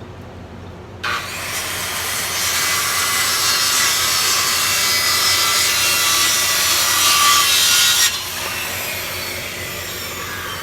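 A saw cutting through plywood, starting abruptly about a second in and running for about seven seconds before the cut ends; a quieter noise carries on afterwards.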